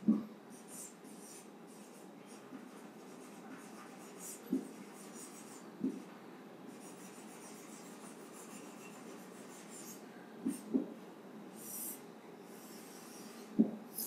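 Marker pen writing on a whiteboard: faint, short, irregular strokes, with a few brief louder taps.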